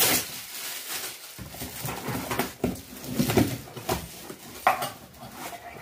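Shiny metallic gift-wrap paper crinkling and tearing as a present is unwrapped by hand, in irregular rustles and sharp rips.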